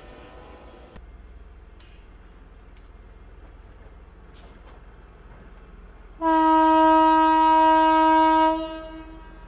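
Rail car horn sounding one long single-note blast of about two seconds, over a low steady background, fading out near the end.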